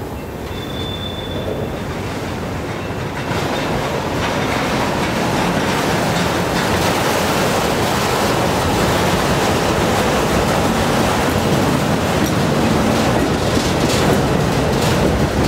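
A freight train of empty steel bulkhead flatcars rolls past close by, its wheels clattering steadily over the rails. A brief high squeal comes about half a second in. The rumble grows louder about three seconds in, and a few sharp knocks come near the end.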